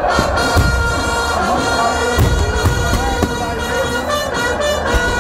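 Fireworks going off, a scattered series of bangs and crackles, over loud music with steady droning held notes.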